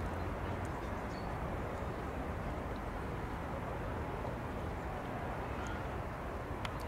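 Steady outdoor background noise: a low hum and rumble typical of distant city traffic, with a few faint high chirps and one sharp click near the end.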